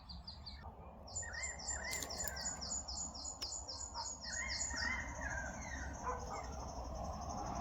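Small birds calling at dusk: a fast run of high, repeated chirps, about six a second, over lower warbling calls.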